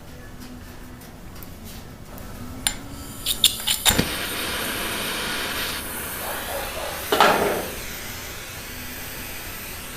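A torch being lit for tinning bodywork before leading: several sharp igniter clicks about three seconds in, then the flame hisses steadily. A louder rush of gas comes about seven seconds in, and the hiss then settles lower.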